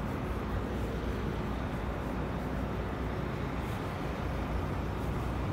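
Steady low rumble of city traffic and buses, with no distinct events.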